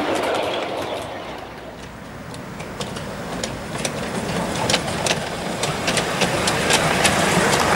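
Miniature ride-on railway train rolling along the track. The noise of the passing wagons fades over the first couple of seconds, then the wheels of an approaching miniature locomotive click over the rail joints, growing louder.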